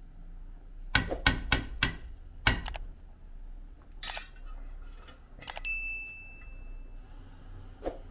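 A metal spoon knocking sharply against the rim and side of a large aluminium cooking pot, about six times in quick succession, followed later by a metal clink that rings on briefly as a single tone.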